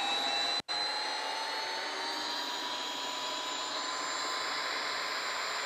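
Hilti SF 6H-A22 cordless hammer drill running in reverse, backing a 10-inch lag screw out of a log: a steady motor whine that rises slightly in pitch, cut for an instant about half a second in.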